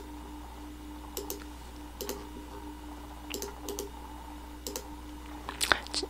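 Scattered clicks of a computer mouse and keyboard, about ten short sharp clicks at irregular intervals, over a faint steady hum.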